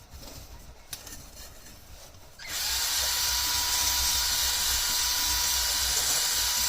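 A drill spinning a spring-loaded cylinder hone in an oiled motorcycle cylinder barrel (1981 Honda CB400 Super Dream). It starts up about two and a half seconds in, after a quiet stretch, and then runs steadily with a high whine over the rasping hiss of the hone stones on the bore, smoothing out marks in a cylinder that was low on compression.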